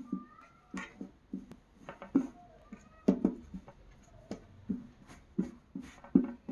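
Hands turning a sewn fabric mask right side out and patting and smoothing it flat on a table: a string of soft, irregular taps and fabric rustles, two or three a second.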